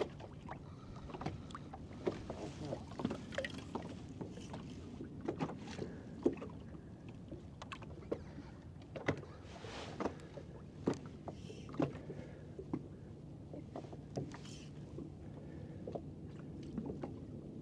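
Quiet small-boat sounds: scattered light ticks and knocks, irregular and roughly one or two a second, over a faint steady low hum.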